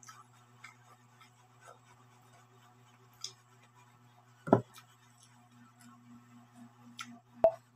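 Eating by hand from a plate: small scattered clicks and taps of fingers picking up food, with two louder short knocks about four and a half and seven and a half seconds in. A steady low hum runs underneath.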